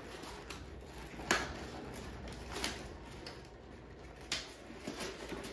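Light handling noises as a cellular shade's lift cord is wrapped around a tape measure: faint rustling with three small clicks spread through.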